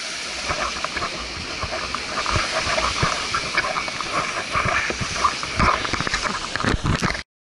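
Wind and breaking surf make a steady rushing hiss, over which come irregular soft thuds of footsteps in sand and knocks of the camera being jostled as its wearer walks. The sound cuts off suddenly near the end.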